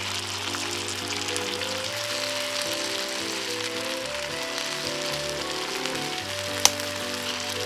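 Background music with held melodic notes and a steady bass, over a continuous crackling, sizzling hiss; one sharp pop cuts through near the end.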